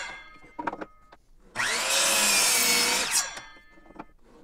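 Sliding compound miter saw crosscutting a 2x4. The blade winds down at the start, a few knocks follow as the wood is shifted on the saw table, then the motor spins up and cuts through for about a second and a half before winding down again.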